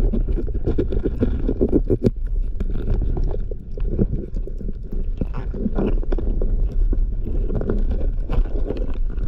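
Underwater rumbling and rushing water with many small clicks and knocks, heard through a waterproof camera housing as a diver struggles in a reef crevice and stirs up silt. The sound grows louder right at the start.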